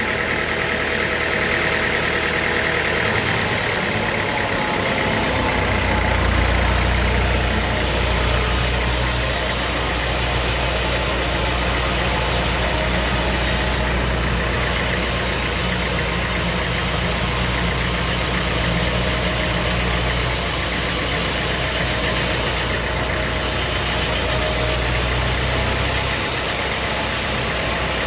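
Sawmill machinery running with a steady engine-like drone. A deeper low hum comes in about five seconds in and drops away near the end.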